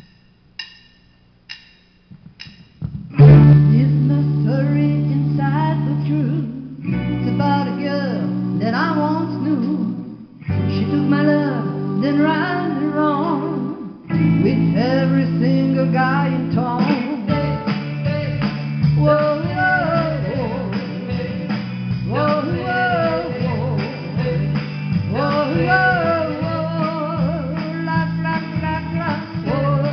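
A woman singing karaoke into a microphone over a loud rock-and-roll backing track, which comes in about three seconds in after a few soft piano notes.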